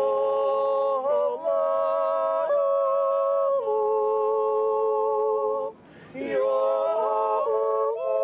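Unaccompanied group of yodelers singing long held chords in close harmony, the chord shifting every second or two, with a short breath pause a little before halfway through the second part.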